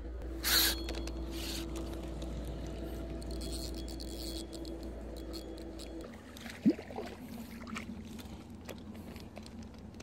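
Steady low hum, then splashing and scraping as a hooked fish is drawn through the shallows onto a gravel bank, with a sudden short loud sound about seven seconds in and scattered clicks after it.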